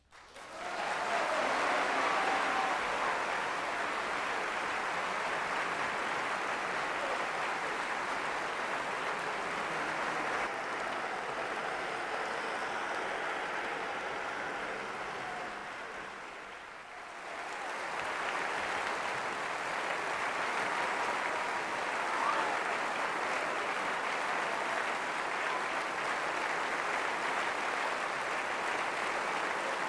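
A large audience applauding, starting sharply just after the orchestra's final note. The applause dips briefly about 16 seconds in, then swells again.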